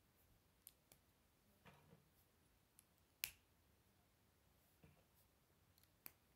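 K'Nex plastic connector pieces clicking as they are snapped together by hand: a handful of short, scattered clicks, the loudest a sharp snap about three seconds in.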